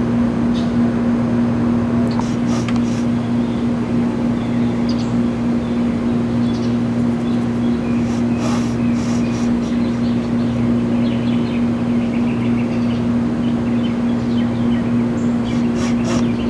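A steady low machine hum at one constant pitch. A few faint clicks and rustles come about two, eight and sixteen seconds in.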